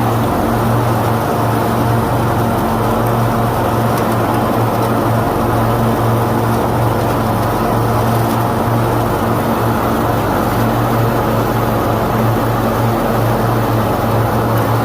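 Engines running steadily while mowing with a pull-behind mower: a constant, unchanging low drone with no breaks.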